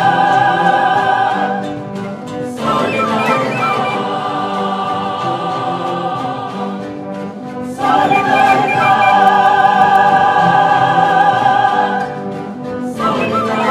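Mixed choir of women's and men's voices singing a classical choral piece in long held chords with vibrato. The phrases break off and restart a couple of seconds in and again near the end, with a louder sustained chord about two-thirds of the way through.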